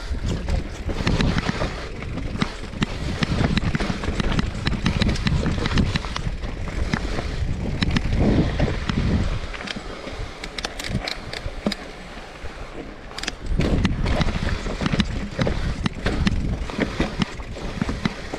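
Electric mountain bike rolling down a rough dirt trail: tyres crunching over dirt and roots, with many sharp rattles from the chain and frame over a low rumble. It eases off for a few seconds around the middle, then picks up again.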